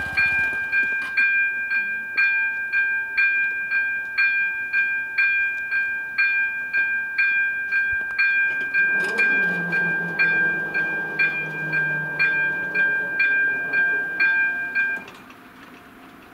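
Level-crossing warning bell ringing about twice a second, a steady series of bright electronic dings. It cuts off suddenly about 15 seconds in, once the half-barriers are down. A low hum sounds underneath partway through.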